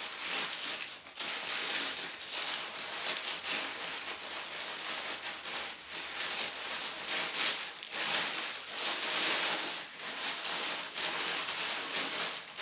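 Gift wrapping paper crinkling and rustling in irregular handfuls as a wrapped package is unwrapped by hand.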